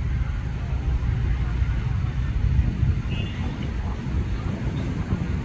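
Steady low outdoor rumble, with a short high chirp about three seconds in.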